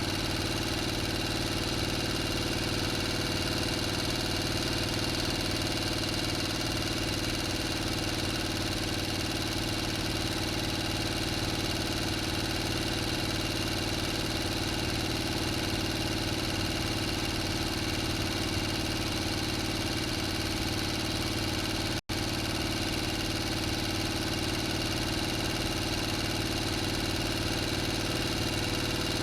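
Engine idling steadily, an even unchanging hum with a constant pitch, broken by a split-second dropout about 22 seconds in.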